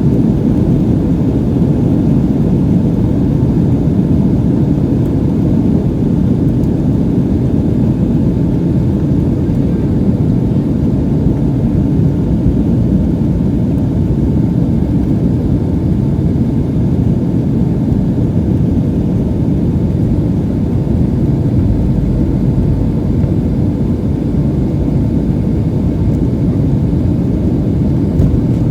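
Boeing 757-300 jet engines at takeoff power, heard from inside the cabin as a steady, loud, deep rumble with a faint steady whine above it.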